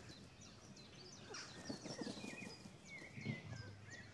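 Faint bubbling and crackling of batter balls deep-frying in oil, with small birds chirping in the background.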